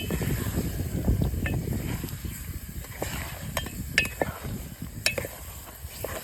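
Food sizzling in a cooking pot while it is stirred with a metal spoon, with several sharp ringing clinks of metal on the pot. The sizzling is louder in the first couple of seconds.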